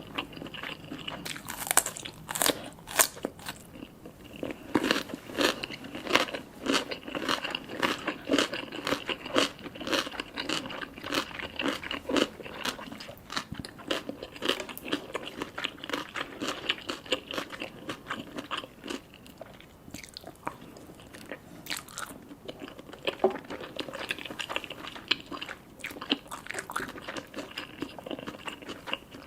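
Close-miked eating sounds: a person chewing and biting food, a dense run of short clicks through the whole stretch.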